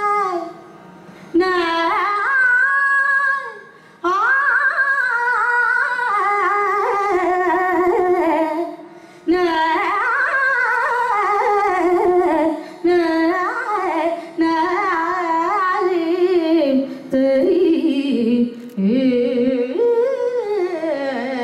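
A woman singing Carnatic vocal music solo: long phrases whose pitch slides and oscillates in ornamented glides (gamakas), broken by short pauses for breath. Near the end the melody descends to a close.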